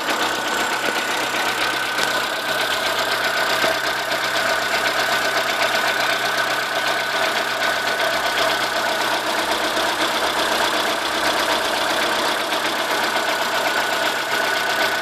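Chevrolet Corsa 1.0 VHC 8V four-cylinder engine idling steadily, with a steady high-pitched whine over the running. The odd noise stops when the alternator belt tension is relieved. It persists with a different alternator and a new tensioner, and a main bearing has been suggested as the cause.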